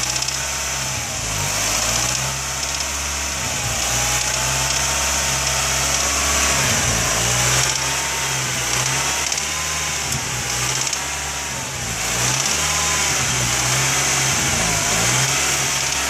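Nissan Sentra B15 engine held at about 2,000 rpm, its speed wavering slightly up and down. This is the range where the owner hears an intermittent clicking, which he wonders may be a throttle butterfly screw or something else.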